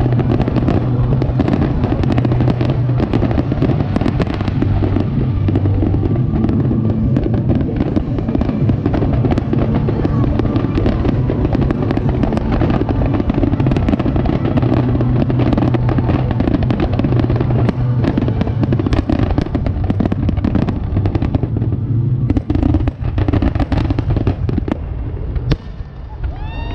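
Aerial fireworks going off in a dense, continuous barrage of bangs and crackling, thinning out near the end.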